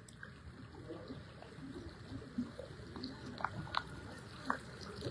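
Floodwater flowing faintly, with scattered small splashes and clicks.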